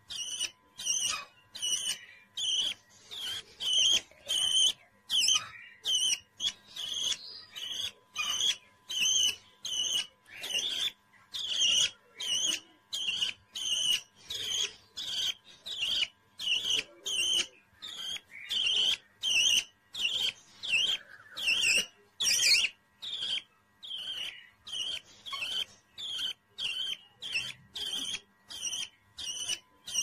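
Budgerigar chick calling in a long, even series of short, high chirps, about two a second.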